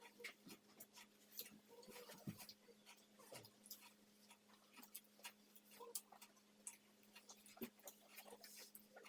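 Faint, irregular mouth clicks and smacks of people chewing and eating burgers, over a faint steady hum.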